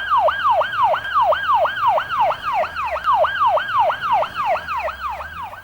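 Police car siren on a fast yelp, its pitch sweeping quickly up and down about three to four times a second, stopping near the end.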